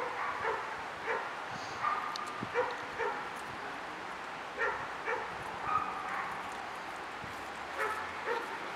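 Belgian shepherd barking at a decoy it is jumping up against: short sharp barks in runs of two or three, with pauses of a second or two between the runs.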